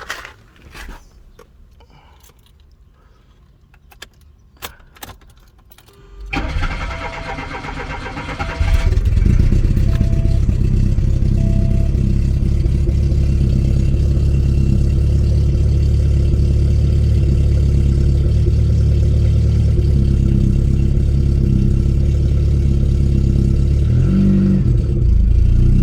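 A 1989 Volkswagen Jetta's 1.8-litre four-cylinder engine is cranked by the starter for about three seconds, catches, and settles into a loud, steady idle through an aftermarket exhaust, with a brief change in pitch near the end. Before that, a few clicks and knocks of handling. At this point the engine runs smoothly; the sputtering toward a stall only sets in after a couple of minutes.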